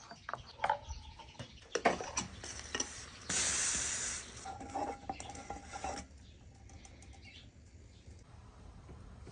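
Clinks and knocks of dishes and utensils being handled, then a steady hiss lasting about three seconds before the sound drops away.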